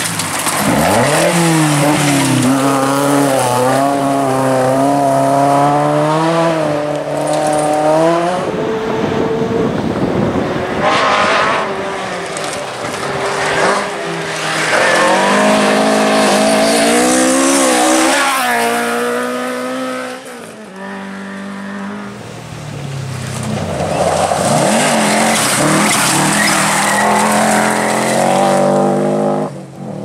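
Rally cars going through a gravel stage one after another, each engine revving hard and dropping through gear changes as it passes.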